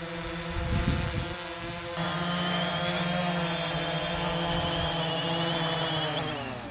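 DJI Phantom 3 Standard quadcopter's four propellers buzzing with a steady, even hum, with a brief low rumble about a second in. Near the end the pitch falls as the motors slow down.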